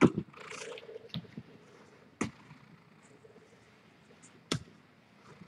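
Three sharp taps about two seconds apart, with soft rustling in the first second, as a small cat toy is moved over a fabric blanket on the floor.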